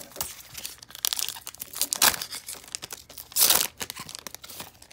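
Foil wrapper of a Panini Contenders football trading card pack crinkling and being torn open by hand, with a loud rip about two seconds in and a longer, louder one about three and a half seconds in.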